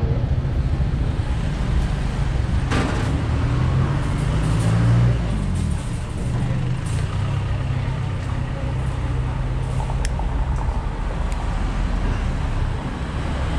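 Road traffic: a steady low rumble of engines, with one vehicle passing louder about four to five seconds in and a brief knock a little before that.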